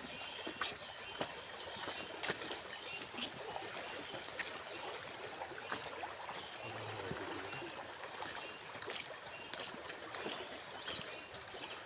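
A fast-flowing stream rushing over rocks, with scattered sharp clicks and snaps over the steady rush of water.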